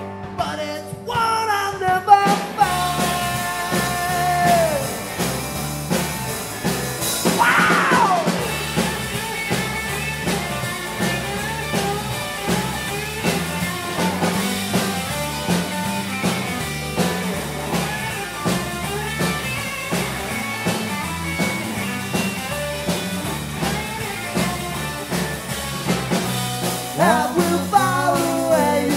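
Live rock and roll band of electric guitars and a drum kit playing an instrumental break, a lead guitar line over steady drums and bass, with a falling glide about seven seconds in. Singing comes back near the end.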